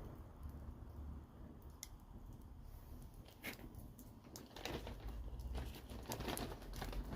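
Wood fire crackling, with irregular sharp snaps over a low rumble.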